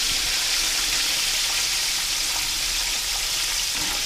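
Buttermilk-battered chicken deep-frying in oil in a cast-iron skillet: a steady, even sizzle.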